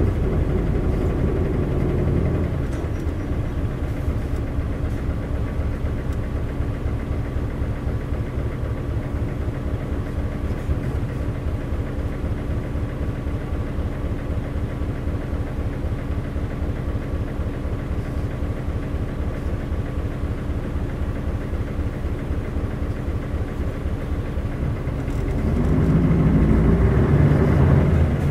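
Isuzu 8PE1 V8 diesel engine of an Isuzu LV city bus dropping to a steady idle about two seconds in, then revving up again about 25 seconds in as the bus moves off.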